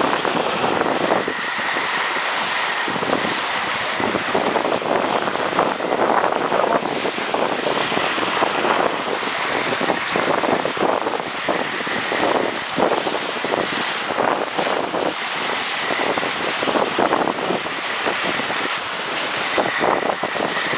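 Wind buffeting the microphone over the steady rush and splash of water along the hull of a small sailboat making way through choppy water. A faint high whistle comes and goes.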